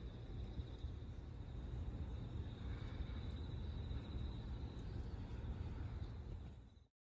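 A steady high insect trill, cricket-like, over a low continuous rumble. Both cut off suddenly just before the end.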